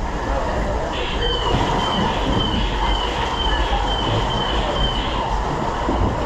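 Flooded Mine ride boat moving along its channel with a steady low rumble. About a second in comes a run of short high squeaks, roughly two a second, lasting about four seconds.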